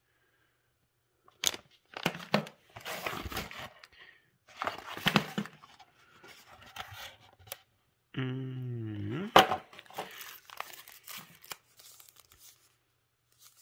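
Crinkling of a plastic anti-static bag and rustling of paper inserts as they are handled, in irregular bursts. About eight seconds in comes a short hum-like vocal sound that dips and rises in pitch.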